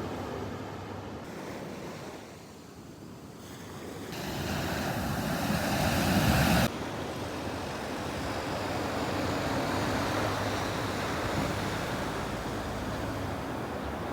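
Sea waves washing in and breaking on the shore; one surge builds to its loudest about six seconds in and stops suddenly, then the steady wash of surf carries on.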